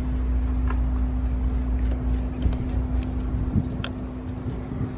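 A steady mechanical hum with a low rumble under it that eases about three and a half seconds in, and a few faint clicks.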